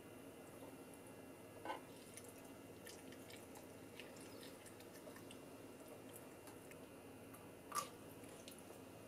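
Faint wet squelches and small ticks of raw squid being handled and gutted by hand on a wooden cutting board. Two short, louder squelches come as the innards are pulled out, one a little under two seconds in and one near the end.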